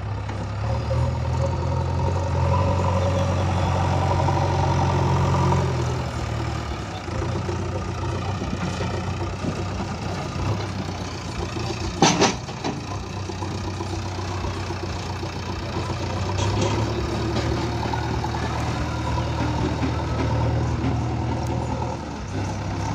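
JCB backhoe loader's diesel engine running under load, louder for stretches as it drives and works the loaded bucket. About halfway through, one sharp loud clank as the bucket tips soil into a tractor trolley.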